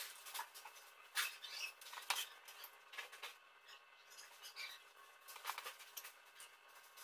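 Scattered light metallic clinks and taps from small stainless-steel handrail fittings being handled, with a couple of sharper clicks about a second and two seconds in.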